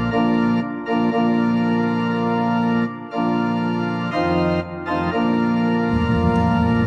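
Organ music playing slow, sustained chords that change a few times, with short breaks between them; the low end grows busier near the end.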